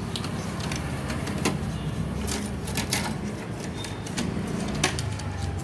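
Scattered light clicks and knocks from the metal mechanism of a Remington typewriter being handled and brushed clean of dust, over a steady low hum.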